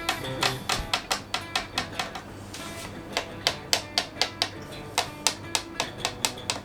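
Marshall Valvestate AVT50 guitar amp with a steady mains hum, sounding a run of sharp ticks about four a second, with a short pause about two seconds in.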